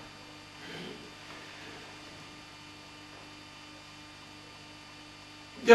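Steady low electrical mains hum with faint room noise.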